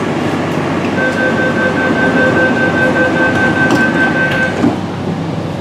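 MTR C-Train metro car heard from inside while it brakes into a station: steady running noise with a held high-pitched tone for about three and a half seconds, then a brief thump near the end.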